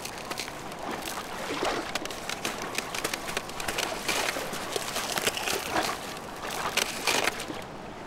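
Eurasian otter thrashing at the edge of thin lake ice, with water splashing and sloshing and short sharp cracks as the ice edge breaks under it, dying down near the end.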